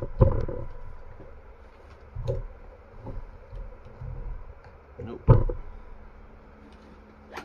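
Scattered knocks and clunks of a Mercury outboard distributor being handled and set down on a towel-covered workbench, the loudest about five seconds in.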